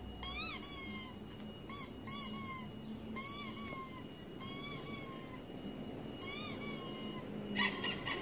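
Squeaky-toy squeaks played from a recording through a laptop speaker. Short squeaks rise then fall in pitch, mostly in pairs, about every second and a half, over a faint steady high tone. Near the end comes a brief, rougher, noisier sound.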